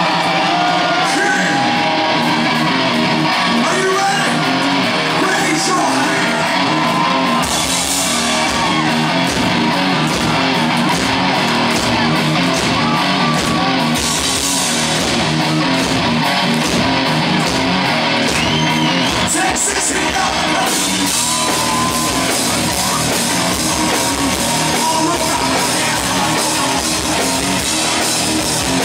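Live hard rock band with lead vocals, heard through the club's PA: the singer's voice over electric guitar, with the bass and a steady drum beat coming in about seven seconds in.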